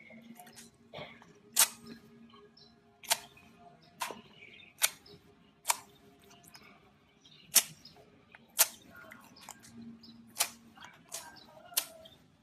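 Gold slime being handled and squished, giving sharp, crisp pops and clicks at irregular intervals, roughly one a second.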